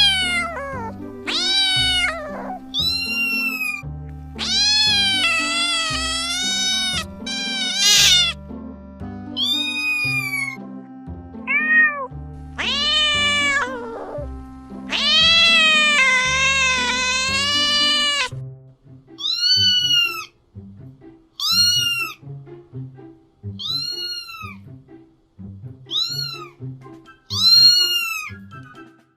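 Domestic cats meowing over background music: a run of long, wavering meows in the first half, then short meows about every two seconds.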